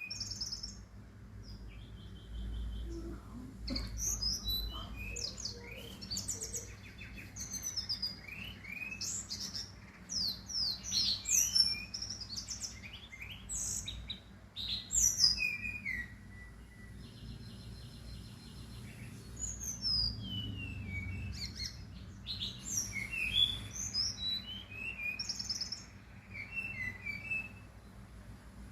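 A songbird singing a long, varied song of rapid high chirps, whistled slurs and trills, with brief pauses between phrases.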